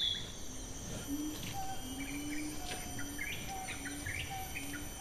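Tropical rainforest ambience: a steady high insect drone, birds chirping, and a low note called over and over, about once or twice a second.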